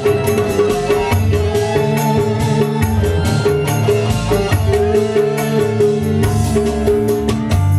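Amplified live band music: a hand-drum rhythm and a stepping bass line under steady, held keyboard notes.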